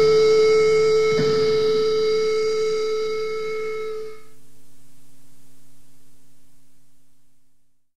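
The closing held chord of a raw black metal recording fades out. A sustained, many-toned drone dies away about four seconds in, and a fainter low tone lingers and fades out near the end.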